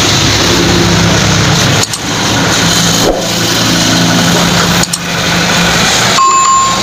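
A motor engine running loud and steady, with a low pitched hum.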